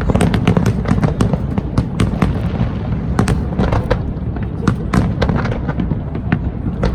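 Fireworks display: a rapid, irregular run of sharp cracks and bangs over a continuous low rumble of shell bursts.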